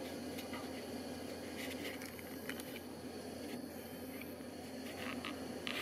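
Steady background hiss and low hum, with a few faint short clicks and ticks, the most noticeable near the end.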